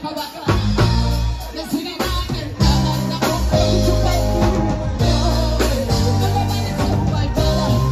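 Live band music: a woman singing lead with backing singers over bass guitar and a drum kit keeping a steady beat.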